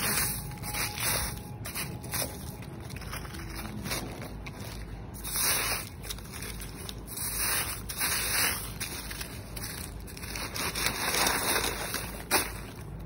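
Crushed ice crunching and scraping in irregular bursts as a hand rummages through it. Near the end a vacuum-packed salmon fillet is dragged up out of the ice.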